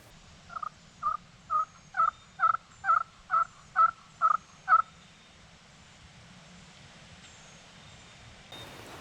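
Wild turkey hen yelping: a run of about ten evenly spaced yelps, a little over two a second, that stops abruptly just before the halfway point.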